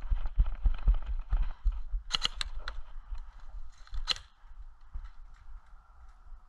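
Thudding running footsteps, then a quick burst of about four sharp airsoft gun shots around two seconds in and a single shot a couple of seconds later.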